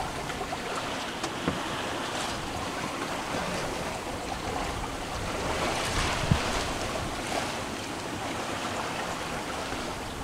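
Sea rushing along the hull of a sailboat under way, with wind over the deck, a steady wash of water and wind noise. A few short knocks sound through it.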